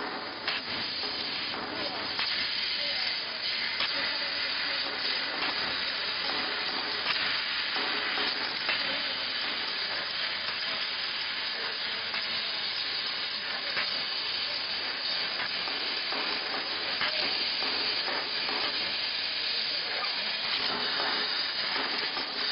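Bodor F1530 fiber laser cutting machine cutting 0.3 mm galvanized steel sheet: a steady hiss from the cutting head and sparks, with many small crackling ticks.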